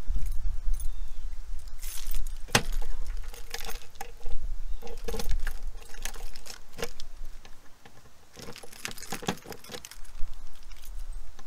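A bunch of keys jangling and clinking as they are handled, with scattered sharp metallic clicks and a low rumble in the first half.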